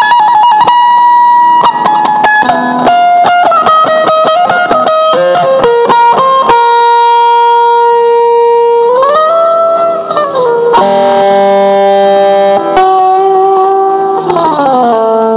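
Guitar being played, likely electric: a run of quick picked notes, then long held notes that bend up and back down about nine to ten seconds in, and bend down and back up near the end.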